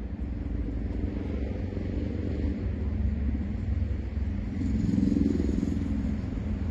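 Low, steady outdoor traffic rumble, with a passing vehicle growing louder about five seconds in.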